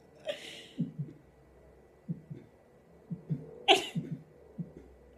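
A woman's stifled laughter: a run of short, low nasal snorts and breathy puffs, with one louder, sharp snort-like burst about three and a half seconds in.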